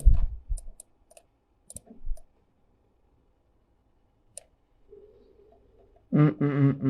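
A few sharp, isolated computer mouse clicks spread over the first few seconds. A person's voice comes in near the end.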